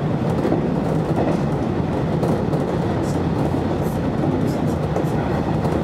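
Electric train running at speed, heard from inside the front cab: a steady rumble of wheels on the rails.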